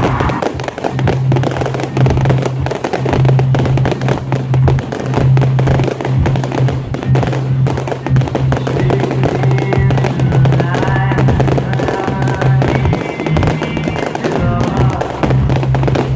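Fireworks exploding and crackling in rapid succession over loud music with a steady low bass.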